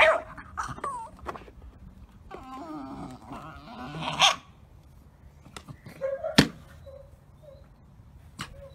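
A blue pit bull–type puppy whining and grumbling in short wavering cries while it noses and shoves a hard round display case, with several sharp knocks; the loudest knock comes a little past six seconds in.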